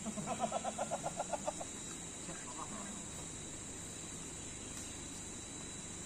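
Steady high insect buzz from the plantation undergrowth. In the first second and a half a bird calls in a quick run of about ten short notes, roughly seven a second, with one fainter call a little later.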